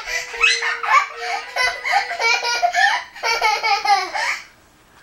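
Young children laughing in quick, excited peals, breaking off about four and a half seconds in.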